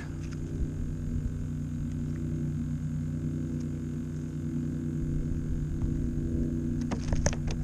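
A steady, low engine drone from a motor not in view, with a few sharp clicks near the end.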